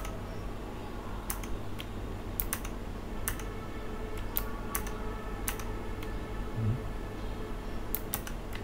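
Keychron K11 Pro keyboard with low-profile Gateron Blue clicky switches: single key presses click sharply about ten times, spaced irregularly, some in quick pairs. These are Function-key combinations stepping the backlight brightness up and down.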